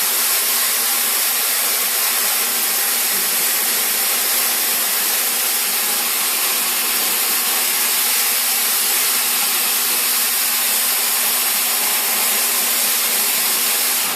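Floor grinding machine running steadily on wet terrazzo: a constant hissing noise over a steady hum. It cuts off suddenly at the very end as the machine is switched off.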